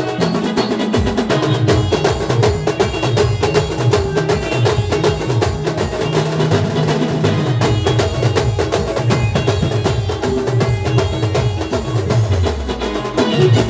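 Band music: a melody over a fast, dense beat of drums and percussion, with a pulsing bass line throughout.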